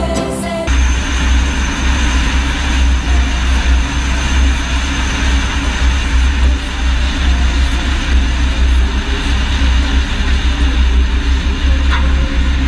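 Airplane engine and rushing air, a loud steady noise with a heavy low rumble, as the plane runs low over the runway. It takes over from music just under a second in.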